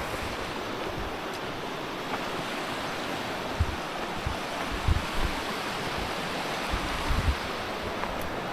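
Steady rush of a waterfall and its stream, with wind buffeting the microphone in a few low bumps midway.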